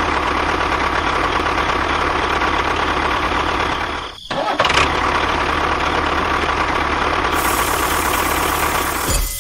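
A motor running steadily, cut off briefly about four seconds in and then running on.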